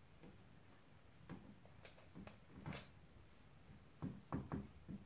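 Faint, scattered clicks and light taps from handling a hot glue gun and a plastic skeleton on a tabletop while tulle is glued down, about ten in all and louder near the end.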